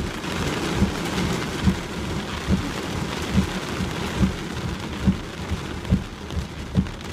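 Heavy rain pouring steadily on a car, with a regular low thump a little more than once a second.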